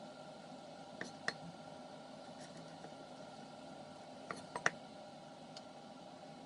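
A few light clicks and taps of kitchenware being handled: two about a second in and a quick cluster of three around four and a half seconds in, over a faint steady hum.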